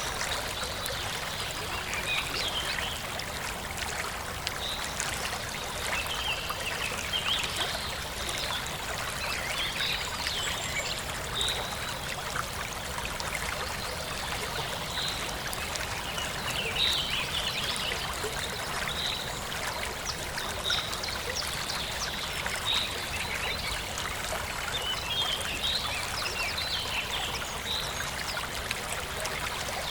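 Forest stream trickling and splashing steadily, with birds chirping over it; one bird repeats a short high note every second or two.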